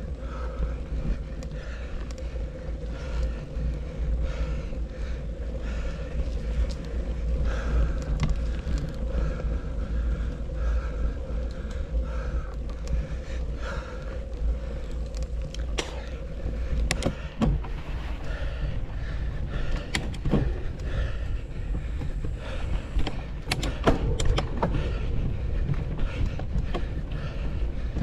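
Mountain bike being ridden on a trail, heard close up: a steady rumble of wind and tyres, with sharp clicks and rattles of the bike over rough ground from about halfway through.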